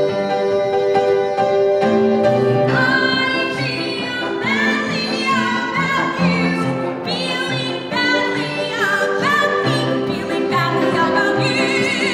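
A man and a woman singing a musical-theatre duet, trading lines over piano accompaniment.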